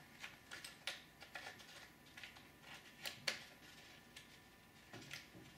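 Faint, scattered light clicks and taps of plastic and metal parts being handled as the center differential's shaft is worked into place in a Traxxas Slash 4x4 chassis, with a quick pair of clicks about three seconds in.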